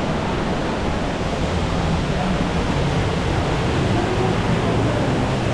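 Steady rushing noise with an indistinct murmur of crowd voices underneath.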